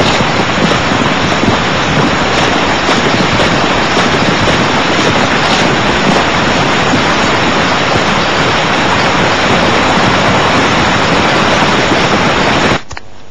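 Wind sound effect: a loud, steady rushing gust that cuts off suddenly near the end.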